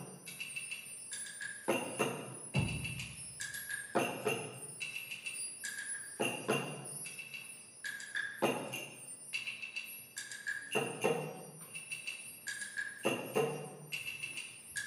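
Sparse percussion music: a struck percussion figure with a bell-like ringing tone, repeating evenly about every two seconds.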